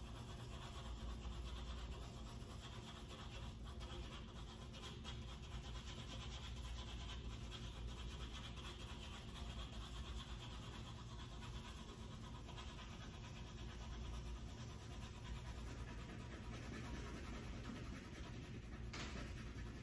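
Pencil shading on paper over a hard board: a faint, continuous scratching of the graphite as it is stroked back and forth with light pressure.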